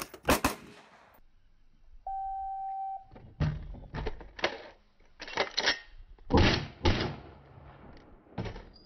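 Rifle shots from an AR-style rifle fitted with a RAGE compensator muzzle brake: two shots at the start, then a steady one-second shot-timer beep about two seconds in, then an irregular string of quick shots fired one after another.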